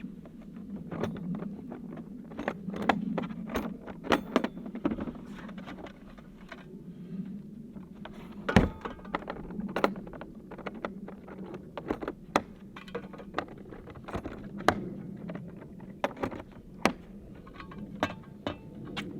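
Irregular clicks, clinks and knocks of small hard objects being handled, one louder knock about halfway through, over a steady low hum.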